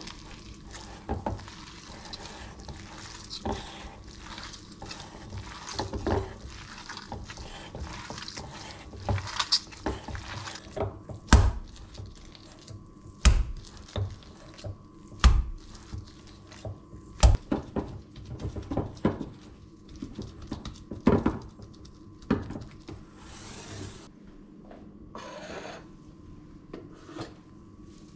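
Gloved hands kneading seasoned ground beef in a stainless steel bowl, with wet, sticky mixing noises and light clicks against the bowl. From about halfway in come heavy thumps roughly every two seconds as the meat is slapped into the bowl.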